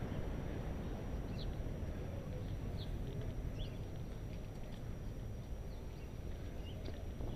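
Bicycle ride: a steady low rumble of wind on the microphone and tyres on pavement, with a few faint, short high chirps scattered through it.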